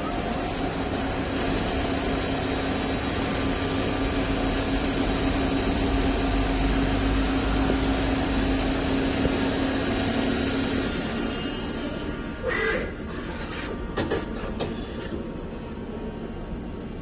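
CNC lathe running a machine cycle: the spindle turns the chuck with a steady hum under a loud hiss, which winds down after about eleven seconds. A few sharp clunks and clicks follow as the tool turret and carriage move.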